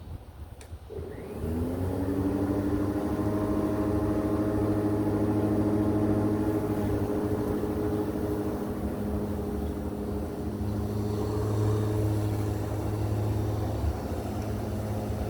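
Corded electric lawnmower switched on about a second in, its motor and blade spinning up with a rising whine and then running steadily as it mows.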